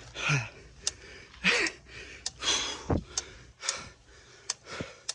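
A cyclist panting hard from the effort of pedalling uphill, a loud breath about once a second, with short sharp clicks in between.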